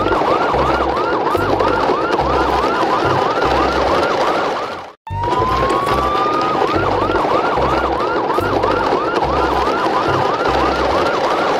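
Electronic siren sound: a tone rising for about a second, then a fast repeated whoop about three times a second over a low pulsing beat. It cuts out briefly about five seconds in and starts over the same way.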